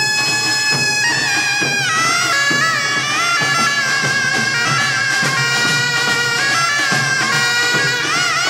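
Taepyeongso, the Korean double-reed shawm, playing a loud melody: it holds a high note, slides down into bending phrases and wavers with a wide vibrato near the end. Underneath, pungmul drums and gongs keep a steady beat.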